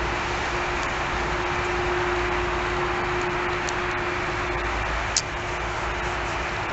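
Steady engine roar with a constant low hum running under it, and a single sharp click about five seconds in.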